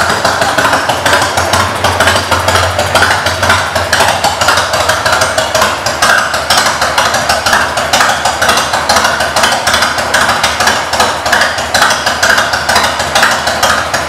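A 1998 Harley-Davidson Heritage Softail's 1340 cc Evolution V-twin running at idle through aftermarket exhaust pipes, a loud, steady, rapid train of exhaust pulses.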